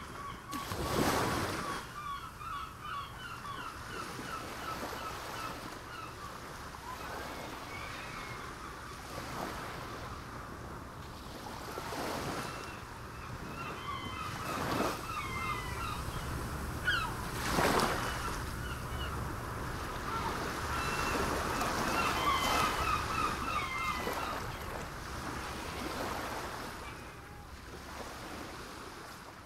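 Sea waves washing onto the shore with a steady wash of surf and wind, several waves surging up louder, the biggest about a second in and again midway. Birds chirp in quick repeated series throughout.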